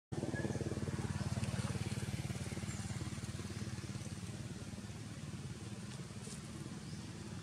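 A motorcycle engine running with a rapid, even beat that slowly gets quieter.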